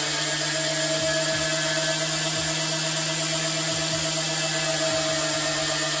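Razor MX650 electric dirt bike doing a burnout at full throttle: a steady electric motor whine under a loud hiss of the rear tyre spinning against the concrete. It cuts off suddenly at the very end.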